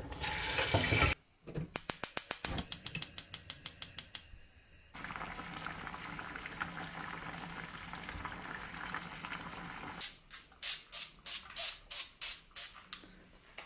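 Potato preparation in a kitchen: running tap water stops about a second in. A quick run of knife chops on a cutting board follows, then about five seconds of steady hiss, then slower chops near the end.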